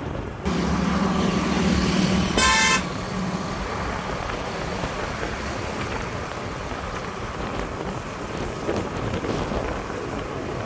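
A vehicle horn honks once, short and high, about two and a half seconds in. Under it runs the steady engine hum and road noise of a moving vehicle, with the engine hum loudest in the first couple of seconds.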